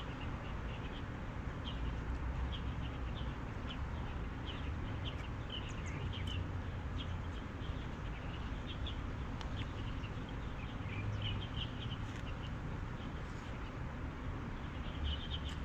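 Small birds chirping in short, repeated bursts over a steady low background rumble.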